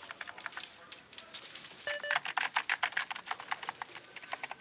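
Rapid keystrokes on a computer keyboard, with two short electronic beeps from the computer about two seconds in.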